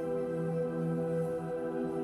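Soft ambient new-age background music of sustained, held tones, with the chord changing about half a second in.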